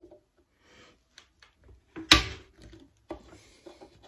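Knocks and clatter of objects being handled, the loudest a single sharp knock about two seconds in.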